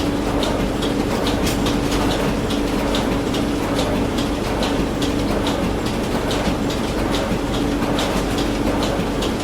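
Printing machine running steadily: a continuous hum with a regular clacking, about two and a half clacks a second.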